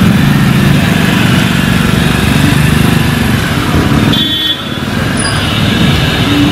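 Street traffic: motor vehicles running and driving through floodwater on a waterlogged road. The sound dips and changes briefly about four seconds in.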